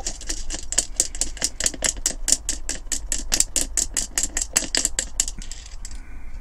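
A diecast metal toy body on a wire being jiggled in a glass jar of caustic soda, clicking and rattling against the glass about six times a second to loosen the paint. The clicking stops near the end.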